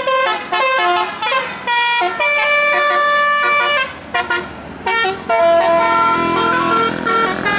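A basuri-type telolet musical horn playing a quick melody of short tooting notes. Over the last couple of seconds it changes to longer held notes, with vehicle noise underneath.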